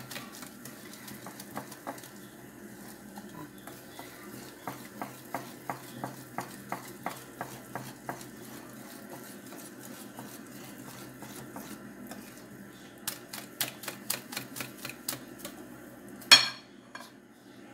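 Wire hand whisk beating thick cake batter in a glass bowl, the wires clicking against the glass about three times a second, working the flour into the batter. The strokes ease off midway and pick up again, and there is a louder knock near the end.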